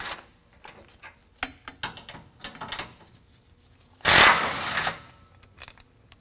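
Cordless impact driver with a 16 mm socket hammering for just under a second about four seconds in, backing out a factory bump-stop bolt, with light clicks and rattles of tool and hardware before it.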